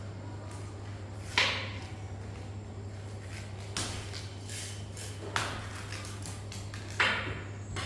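A handful of sharp knocks or strikes, about five, spaced irregularly a second or two apart, each with a short ringing tail, over a steady low hum.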